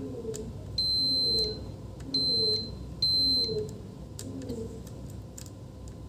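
Multimeter continuity tester beeping three times as its probes touch points on a laptop motherboard, each a steady high tone lasting about half a second. A beep marks a low-resistance path between the two probed points, as when checking for a short circuit. Light clicks of the probe tips on the board.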